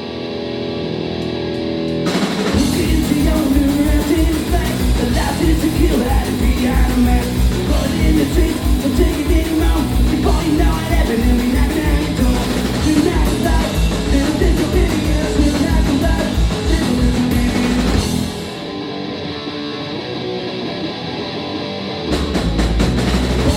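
Live punk rock band playing the opening of a song. Electric guitar chords ring out alone at first, then drums and bass crash in about two seconds in. The drums and bass drop out again for a few seconds near the end, leaving the guitar, before the full band comes back in.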